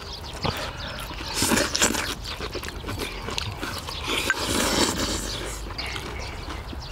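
Close-miked eating sounds: chewing and slurping braised kimchi, with small clicks, louder bursts about two seconds in and again around four to five seconds in.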